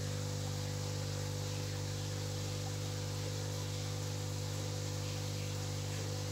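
Steady low hum with a faint hiss, unchanging in pitch and level.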